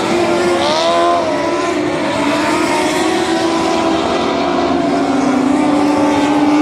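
A pack of dwarf race cars' motorcycle engines running hard together at racing speed. One car passes close about a second in, its pitch rising and then falling.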